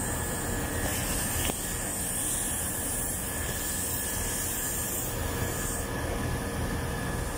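Split-type air conditioner outdoor unit running steadily, its compressor and fan going while refrigerant is being charged into it. A hiss in the upper range grows stronger from about a second and a half in until about six seconds.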